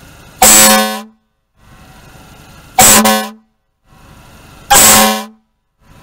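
Car-mounted air horn sounded three times in short, loud blasts about two seconds apart.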